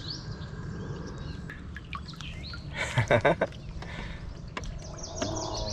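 Birds chirping over a steady low rumble, with a quick cluster of knocks about three seconds in and a low buzzy call starting near the end.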